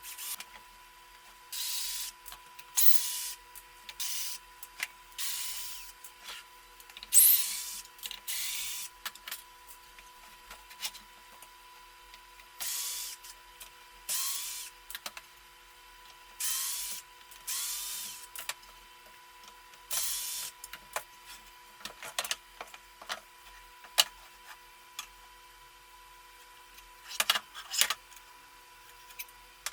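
A power tool run in short bursts of about half a second to a second each, many of them spinning up briefly, with sharp clicks and knocks between the bursts.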